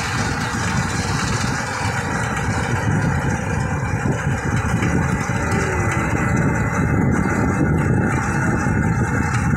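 Steady low rumble of a rickshaw ride through town traffic, with wind buffeting the phone's microphone.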